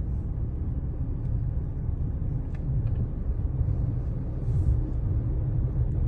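Steady low rumble of a car driving, heard from inside the cabin, with a few faint clicks in the middle.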